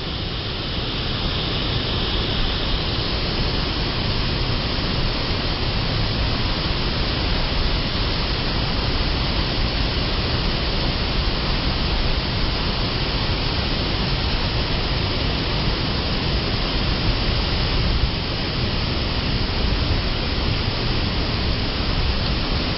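Waterfall rushing in a steady, loud roar of falling water, with heavy low rumble close to the microphone.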